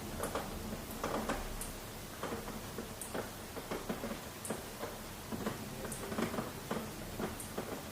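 Rain, heard as many separate drops tapping irregularly on a hard surface over a low steady hiss, with a faint high tick about every second and a half.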